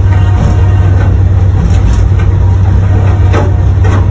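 Diesel-electric locomotive running, heard from inside the cab: a steady, loud low drone, with a few short knocks scattered through it.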